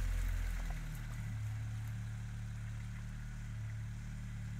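ATV engine running under load as the quad drives through deep bog mud, easing about a second in to a steady, slightly quieter run.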